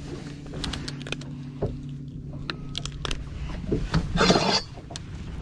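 Electric trolling motor humming steadily and stopping about three seconds in, under scattered clicks and knocks of handling on the boat deck, with a short scuffling burst near the end.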